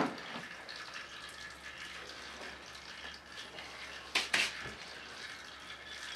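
Fluid trickling steadily out of the diesel engine's drain into a drain pan. About four seconds in, two quick knocks.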